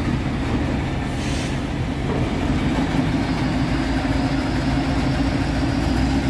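Diesel engine of a large Liebherr all-terrain mobile crane running steadily, a continuous low hum with a steady tone that grows a little stronger about halfway through. A short hiss comes about a second in.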